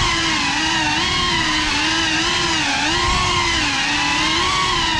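Whine of a GEPRC CineLog35 cinewhoop's motors and ducted propellers, heard from the onboard camera. The pitch rises and falls constantly with the throttle as the drone manoeuvres.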